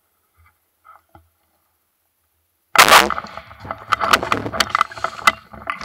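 Near silence with a few faint rustles, then a single loud shotgun shot about three seconds in, fired at a wild turkey at close range. A run of irregular rustling and clatter follows the shot.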